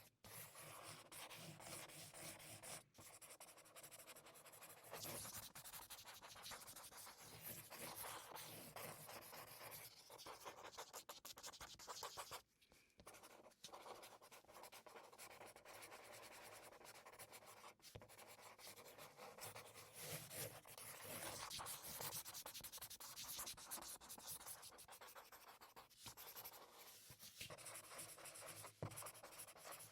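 Marker pen writing, a faint run of quick scratchy strokes with short breaks, the longest about halfway through the first half.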